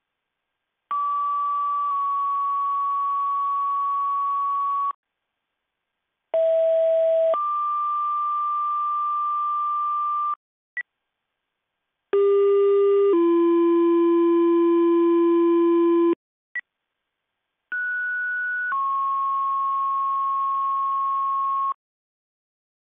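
Fire-dispatch two-tone sequential pager tones sent over the radio: four tone sets, each a short steady tone of about a second stepping to a longer held tone of three to four seconds, with a brief high beep between some sets. They are the alert tones that set off the volunteer fire departments' pagers before the voice dispatch.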